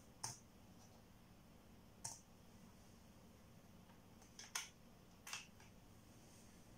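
A few short, sharp clicks a second or two apart over near silence: laptop keys being pressed and the laptop being handled.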